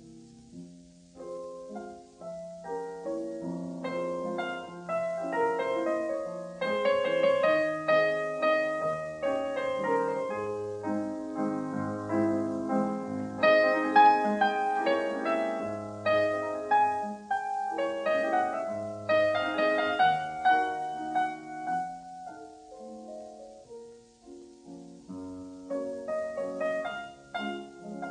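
Background piano music, a melody of held notes that swells through the middle and drops back about three-quarters of the way in.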